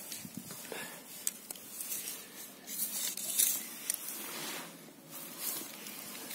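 Faint rustling with scattered light clicks: handling noise from the tape measure being moved away from the chain.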